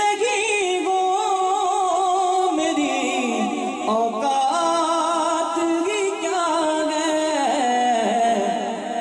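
A man singing a naat a cappella into a microphone, drawing one phrase out over long, wavering notes with ornaments, the melody stepping down about three seconds in and again near the end.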